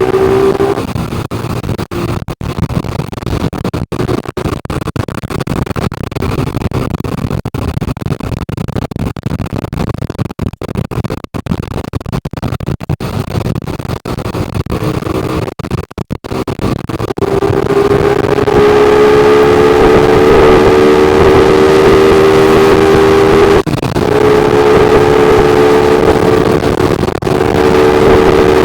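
A vehicle engine running, held at steady raised revs from about seventeen seconds in, with short dips near the end.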